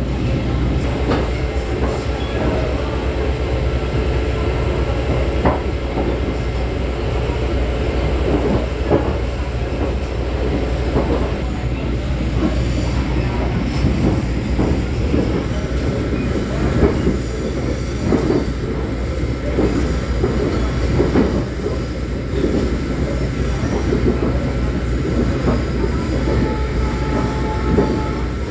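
Ride noise inside a moving diesel light-rail railcar: a steady low engine drone under the rumble of wheels on the track, with occasional sharp clacks from the rails.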